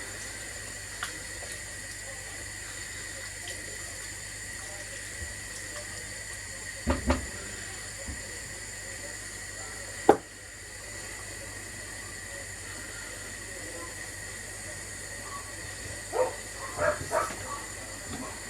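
Curry simmering in a cast-iron Dutch oven on raised heat: a steady hiss of liquid and steam. A few brief knocks about seven seconds in and a short clatter near the end.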